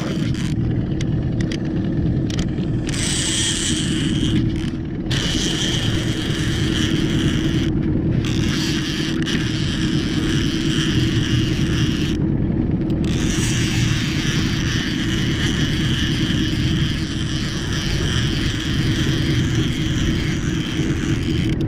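A boat motor runs with a steady hum while a fishing reel is cranked in spells, stopping and starting, as a hooked paddlefish is played.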